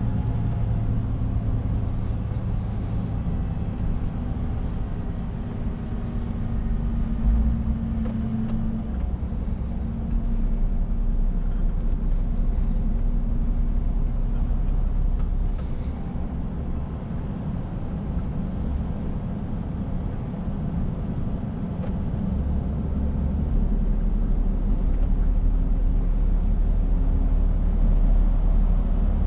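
Scania S460 truck's 13-litre straight-six diesel running under way, heard from inside the cab together with steady road and tyre noise. The low rumble grows louder over the last few seconds.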